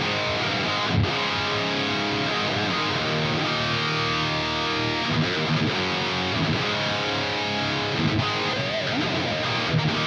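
Distorted electric guitar played through a Bogner Snorkler 50 tube amp head: a heavy riff of held, ringing chords and notes, with a few string bends.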